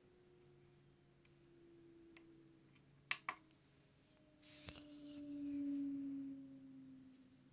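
Faint tabletop handling: two quick clicks about three seconds in, typical of pressing the tare button on a small digital pocket scale, then a soft rustle and a low hum that slowly falls in pitch over the last few seconds.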